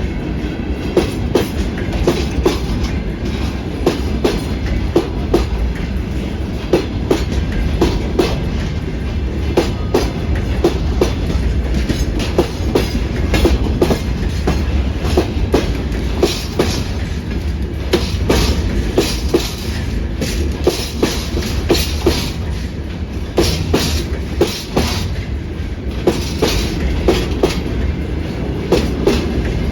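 Freight train rolling past: a steady low rumble of wagons with frequent sharp clacks of wheels crossing rail joints.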